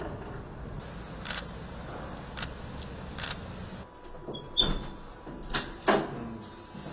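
Steady background noise with a few light ticks; then, from about four seconds in, a key working an apartment door lock: three sharp metallic clicks with a brief ring, followed by a short hiss near the end as the door is worked open.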